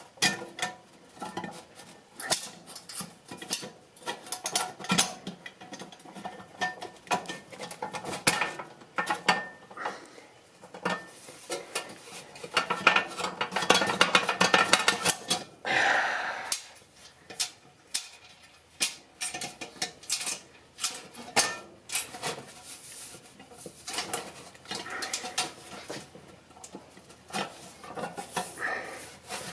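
Light metal clinks, taps and rattles of a stovepipe damper's plate, rod and the sheet-metal 6-inch stovepipe being handled and fitted together. There is a denser stretch of rattling about halfway through.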